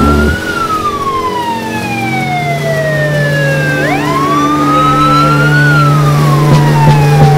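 A wailing siren. Its pitch falls slowly for about three seconds, jumps back up about four seconds in, then falls again. A steady low hum runs underneath.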